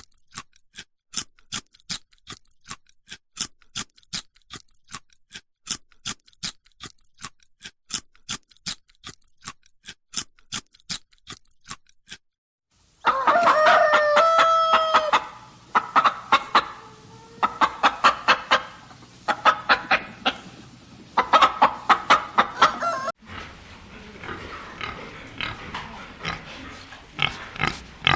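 For about the first twelve seconds, a run of sharp, evenly spaced clicks, about two and a half a second. Then farm animals calling: a drawn-out pitched call, followed by pigs grunting in quick rhythmic bursts that go on to the end.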